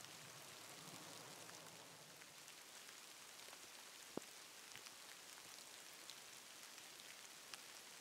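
Faint patter of light rain on the forest floor and leaves, with scattered small ticks and one sharp click about four seconds in.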